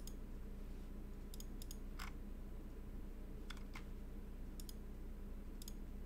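Faint computer mouse clicking: about a dozen sharp clicks spread irregularly, several in quick pairs, over a low steady hum.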